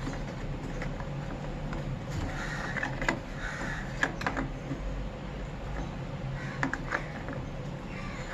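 A few scattered light clicks and knocks of a plastic washing machine drain-filter cap being handled and fitted back into the machine.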